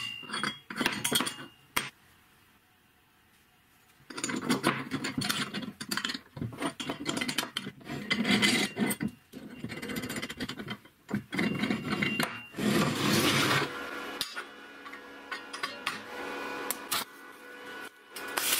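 Steel workpieces being handled and fitted together by hand: a few sharp clinks, a short pause, then several seconds of metal scraping and rubbing on metal with frequent clinks as a bracket, roller and bolt are assembled.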